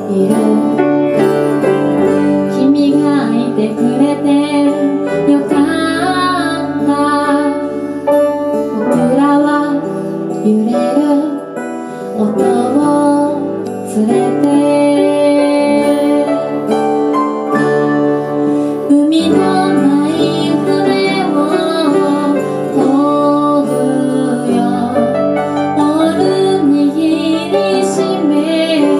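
Live acoustic performance: a woman singing a slow song, accompanied by a plucked acoustic guitar and piano.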